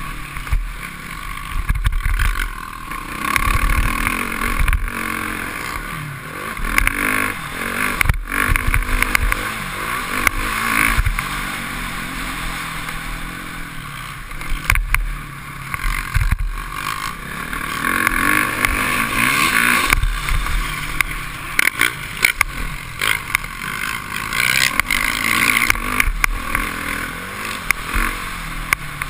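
Motocross bike engine revving up and dropping back again and again as the rider works the throttle around the dirt track, heard from a helmet-mounted camera with wind on the microphone and a few sharp knocks from bumps.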